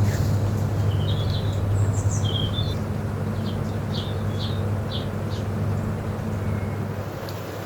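Small birds chirping in a run of short high calls over a steady low rumble and the even hiss of rain.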